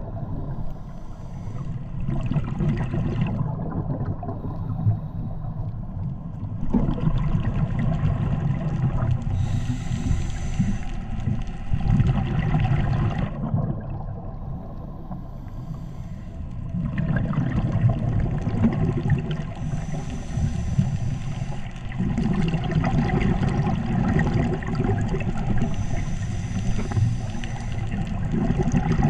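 Underwater sound of a scuba diver breathing through a regulator: a hiss on each inhale and a low bubbling rumble of exhaled air, repeating in slow cycles several seconds apart.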